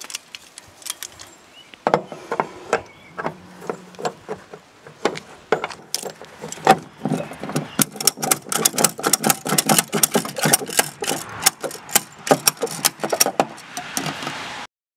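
Tire-bonnet ratchet strap and its metal hooks being worked on a trailer's X-Track rail: scattered metal clicks and clanks, then from about six seconds in a fast run of ratchet clicks, cut off abruptly near the end.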